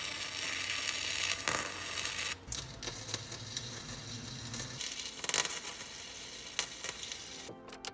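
Arc welder crackling and sizzling while welding nuts onto rusted bolts so they can be turned off, in a few stretches that stop and start abruptly.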